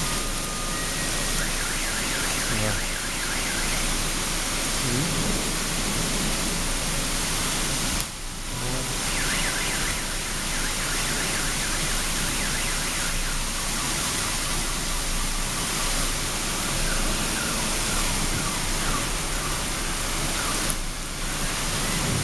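Heavy rain with hail pouring down on a street, a dense steady hiss that dips briefly twice, about eight seconds in and near the end.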